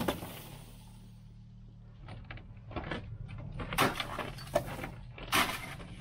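Snow shovel whacking the packed snow overhang on a roof edge: several sharp hits, the hardest about four and five and a half seconds in, knocking snow loose.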